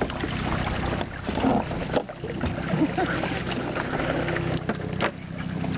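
Kayak under way on floodwater: water noise around the hull with wind on the microphone, a faint steady low hum, and a few sharp knocks, the loudest about five seconds in.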